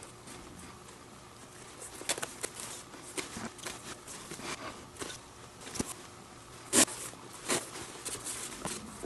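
Leather lace being threaded and pulled through the lacing holes of a youth Mizuno Global Elite baseball glove, with irregular short rasps and clicks of leather being handled and worked with a metal tool; the loudest rasp comes just under seven seconds in.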